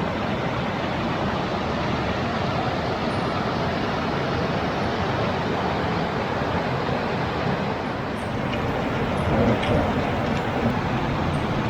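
Waterfall roaring: a steady, even rush of falling water.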